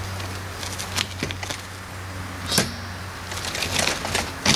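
Scattered sharp clicks and knocks from the frame of a Croozer Kid for 2 stroller/bike trailer as it is handled and swung around. A loud knock comes about two and a half seconds in, a quick run of clicks follows, and another loud knock falls at the end.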